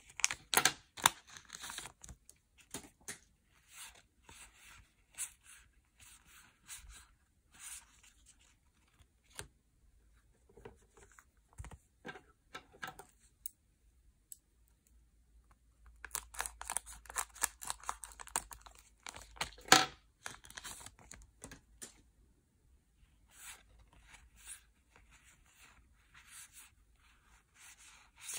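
Yu-Gi-Oh! booster pack wrappers being torn open and handled: bursts of crinkly tearing with sharp snaps, and quieter rustling between them. There is a pause of a couple of seconds about halfway through.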